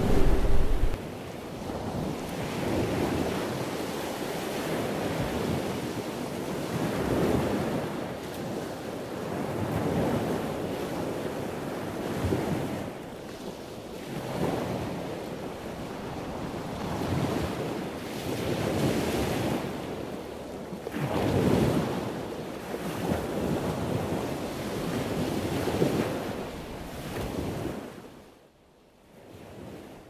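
Ocean surf breaking on a shore, with wind: a hissing wash that swells and ebbs every few seconds and fades out near the end.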